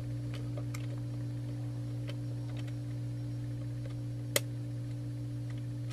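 Faint scattered clicks from a Westclox quartz analog alarm clock as its hands are wound round by the setting knob, with one sharp click about four seconds in; the electronic alarm stays silent, which the owner puts down to a dirty or oxidised alarm switch. A steady low hum runs underneath.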